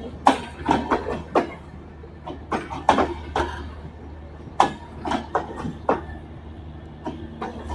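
Train running on rails: irregular sharp knocks and clatter from the wheels and cars over a steady low rumble.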